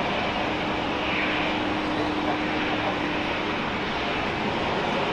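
Jet airliner engine noise: a steady, even rush, with a faint steady hum through the first few seconds.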